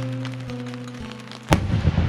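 Music with held notes, then about one and a half seconds in a single sharp bang from an aerial firework shell bursting, followed by dense crackling.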